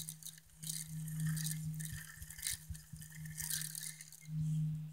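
Fishing reel being wound in, a rattling clicking with a steady low whirring hum that swells about a second in and again near the end.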